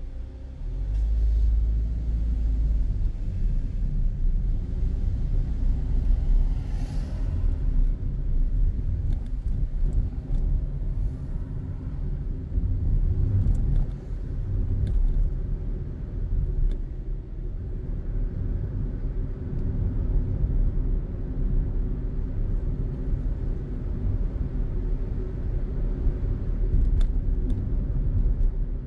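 Car driving on a town street: a steady low rumble of engine and tyre noise, with a short hiss about seven seconds in.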